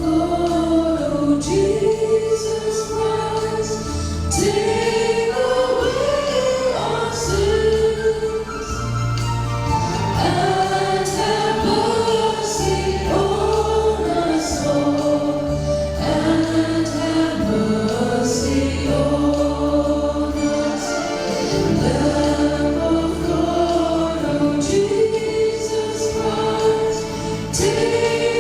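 Church choir singing a slow hymn at Mass, over instrumental accompaniment with long sustained bass notes.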